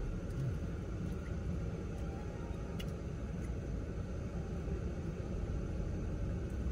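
Steady low rumble inside a car's cabin, with a faint click about three seconds in.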